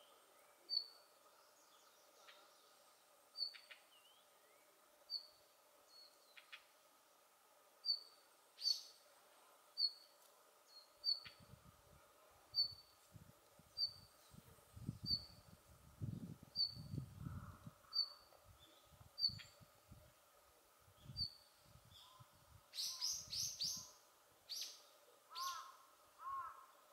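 Male red-flanked bluetail giving its short, high call note over and over, about once every second or so. A louder cluster of higher notes comes near the end, and a low rumble runs through the middle.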